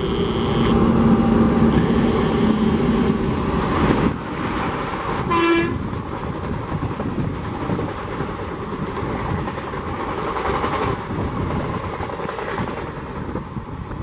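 Horn of an Indian Railways WAP-4 electric locomotive sounding for about the first second as the train approaches at speed. A short horn toot comes about five and a half seconds in, followed by the steady rush of passenger coaches passing close at speed.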